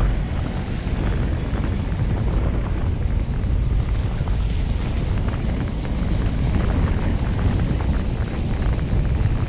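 Car driving along a road: a steady, rough low rumble of wind buffeting the microphone mixed with road noise, with a faint high hiss above it.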